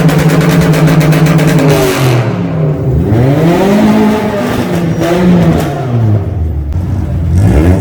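Modified car engine being revved: held at a steady high pitch for about two seconds, then dropping and revving up again several times in a row.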